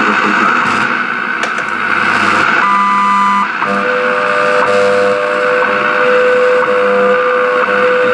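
Shortwave static and hiss from a 1937 Sears Silvertone tube radio's speaker. About three seconds in, steady whistling tones of station carriers come in over the hiss: a pair of higher whistles, then a lower tone that holds.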